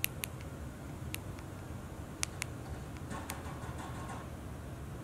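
Typing on a smartphone touchscreen: irregular sharp clicks, a few at a time with short gaps, over a low steady hum.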